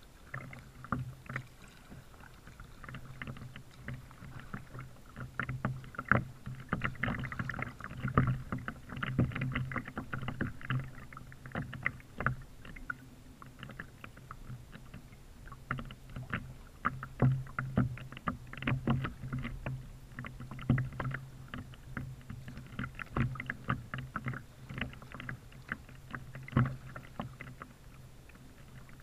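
Kayak paddling on calm water: paddle blades dipping and splashing, with water dripping and lapping against the plastic hull in irregular small splashes and clicks over a low steady hum. It is picked up by a camera mounted on the kayak's bow.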